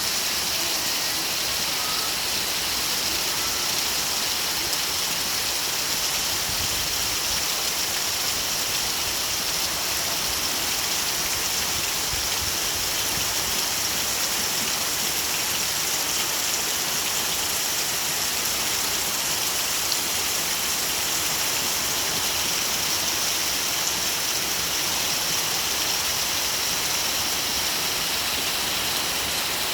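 Storm rain falling steadily, an even, continuous hiss.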